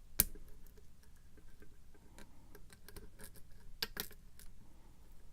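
Lock pick and tension tool working the pins of a pin tumbler lock, giving scattered light metallic clicks, with one sharp click just after the start.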